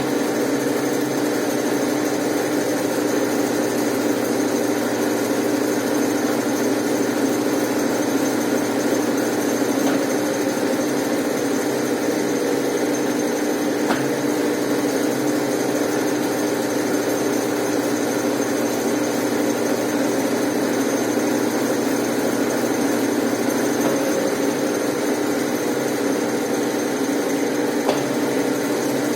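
Brastemp Ative BWL11AR 11 kg washing machine running with a steady motor hum and a faint high whine.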